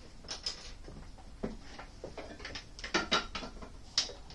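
Metal tools clinking and knocking on the lathe while the parting-off tool is set up in the toolpost: a run of irregular light clinks, with two sharper strikes about three and four seconds in. The lathe is not cutting.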